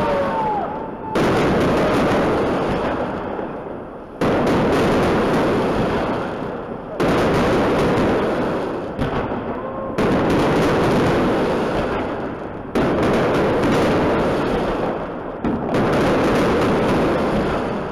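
Large aerial firework shells bursting overhead, six loud bangs about every three seconds, each followed by a long fading rumble that echoes between the surrounding buildings.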